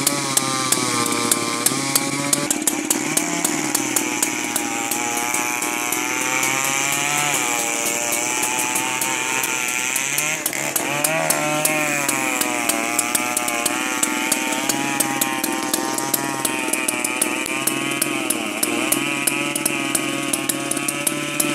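Vintage two-man chainsaw engine running, its speed rising and falling over and over as it works, with sharp ticks several times a second.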